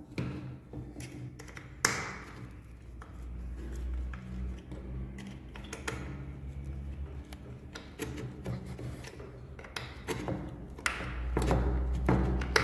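Small clicks and knocks of wooden parts and a small metal screw being handled and fitted together by hand, with a sharper click about two seconds in.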